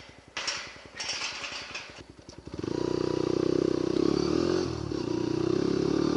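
Motorcycle engine idling with an even pulse and a few clattering knocks. About two and a half seconds in it gets much louder, its pitch rising and falling as the bike pulls away and rides.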